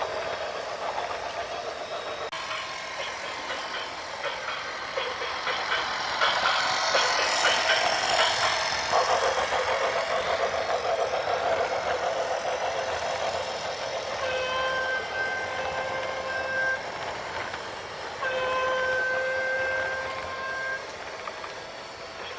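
Heavy vehicle running with a rattling, noisy din, followed by two long, steady horn blasts a little over a second apart, each held for about two and a half seconds.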